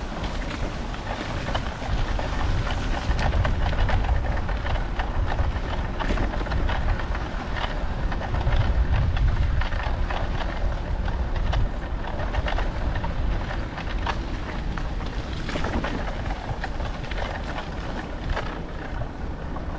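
Riding noise from a bicycle on cold, snowy pavement. There is a steady low rumble, like wind on the microphone, with constant small clicks and rattles from the tyres and bike.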